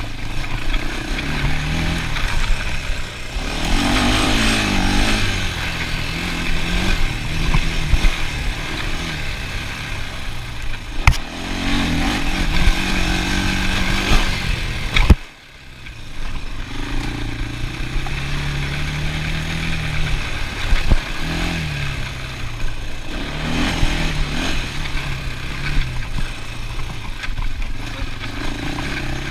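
ATV engine running while riding, its pitch rising and falling as the throttle opens and closes. There are a few sharp knocks, and just after the loudest one, about halfway through, the sound briefly drops out before the engine picks up again.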